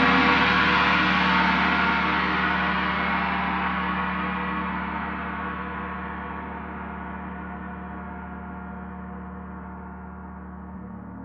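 Paiste planetary gong tuned to Saturn (D, 147.85 Hz) ringing in a full, shimmering wash that slowly fades. Its bright upper overtones die away first, leaving a steady low hum.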